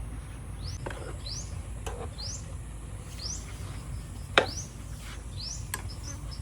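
A bird repeatedly giving a short, high, rising chirp, about once a second, with a few sharp knocks among them, the loudest about four seconds in, over a steady low rumble.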